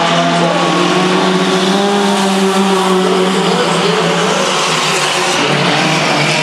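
Several mini-truck race engines running together in a pack, their overlapping engine notes drifting up and down in pitch.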